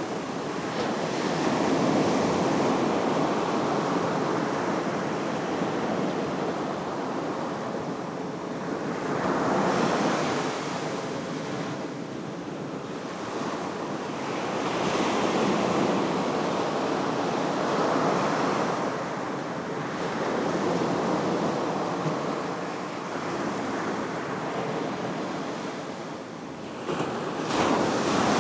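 Ocean surf breaking and washing up onto a sandy beach, the rush of water swelling and fading every few seconds, with a sharp surge near the end.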